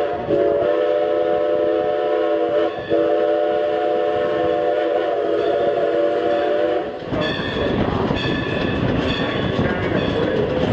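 Steam locomotive No. 90's whistle blowing a chord in three blasts, the last about four seconds long, then stopping about seven seconds in; after it, the rumble and clatter of the train rolling along the track.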